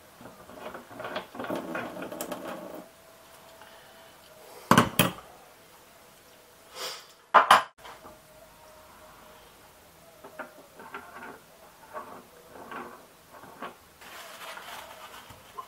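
Metal hand tools and small tap parts clinking and clattering against a stainless steel sink drainer during a kitchen mixer tap repair, with two loud sharp knocks about five and seven and a half seconds in.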